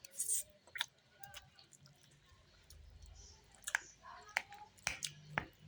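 Someone eating a noodle dish: scattered sharp clicks and taps of a utensil with quiet chewing, the clicks coming a few times a second apart near the start and again in the second half.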